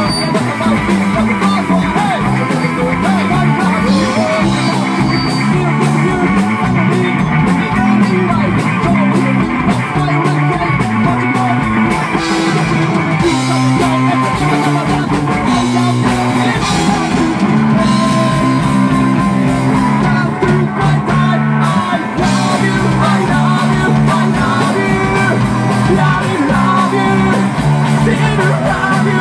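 Rock band playing live and loud: an electric bass line and drums with a singer's voice on top, a steady beat throughout.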